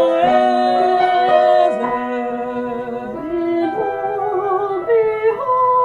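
A slow hymn sung with keyboard accompaniment. The singer sings 'forever' and holds long notes, with a wavering sustained tone near the end.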